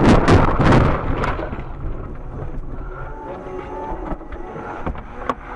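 A car collision: a loud, noisy burst with several sharp knocks in the first second, then a steady low vehicle rumble.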